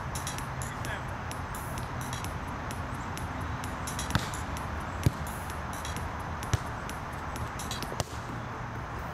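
A beach volleyball struck by players' hands four times in a rally: sharp slaps a second or so apart, the last a spike at the net. A steady low outdoor rumble runs underneath.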